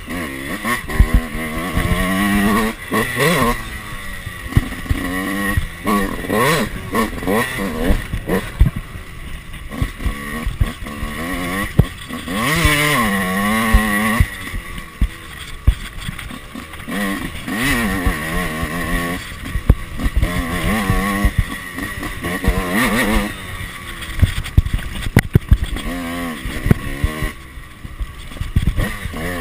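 Yamaha YZ two-stroke motocross bike engine, heard from on the bike while riding: the revs rise and fall again and again as the throttle is opened and shut through the gears, with frequent short knocks.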